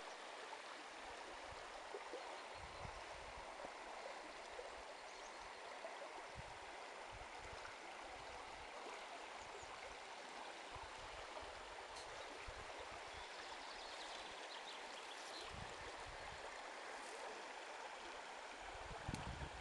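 Small river flowing, a steady rush and gurgle of water running over its shallow stony bed.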